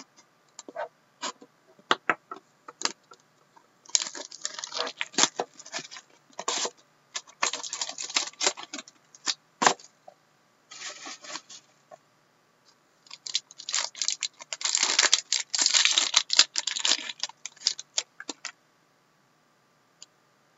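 Plastic wrapping on a sealed trading card box and its pack crinkling and tearing as they are opened by hand, in two long bursts of dense crackling with scattered crackles before, then stopping shortly before the end.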